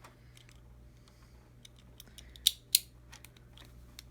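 Small clicks and taps of hard plastic as a Beyblade spinning top is handled, with two sharp clicks close together about two and a half seconds in.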